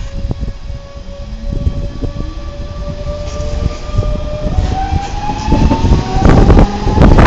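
DB Class 425 electric multiple unit pulling away, its traction electrics giving a high whine that climbs in pitch in steps as it accelerates, over a low running rumble that grows louder toward the end.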